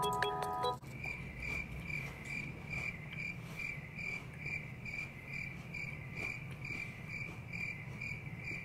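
Cricket chirping steadily, about three high chirps a second, over a low hum. A short ringtone-like music phrase cuts off under a second in, just before the chirping starts.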